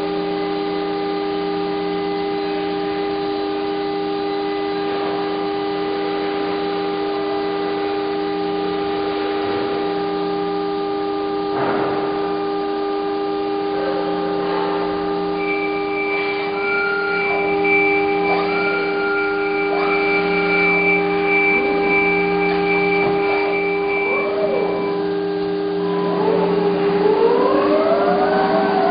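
Automated machining head working on a metal car door frame: a steady hum of several held tones, with higher whines that switch on and off and glide up and down in pitch, more of them in the second half.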